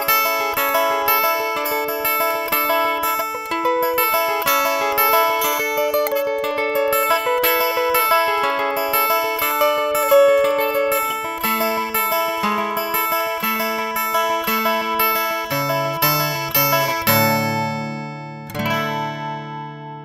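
Solo acoustic guitar playing an instrumental tune in quick, evenly picked notes. About 17 seconds in it settles on a final chord, which is struck once more and left to ring and fade out.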